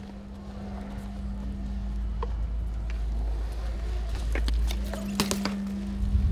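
BMX bike rolling over skatepark concrete: a low rumble that grows louder, under a steady hum. A few sharp clicks and knocks come from the bike about four to five and a half seconds in.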